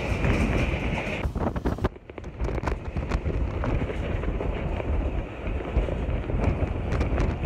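Wind buffeting the microphone at an open window of a moving passenger train, over the train's steady running rumble. A high, steady hiss stops about a second in, and the sound dips briefly just after.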